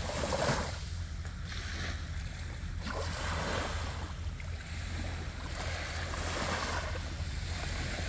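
Small waves washing onto a sandy beach, swelling and easing every few seconds, with a steady low rumble of wind on the microphone.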